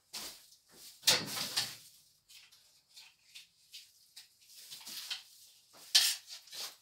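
Irregular rustling, scuffing and knocking handling noises, with a louder scrape lasting under a second about a second in and a short sharp noise near the end.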